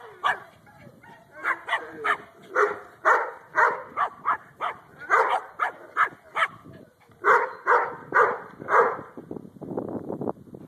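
Yorkshire terrier barking over and over in short, sharp yaps, with a brief pause about six and a half seconds in; the barking stops about nine seconds in.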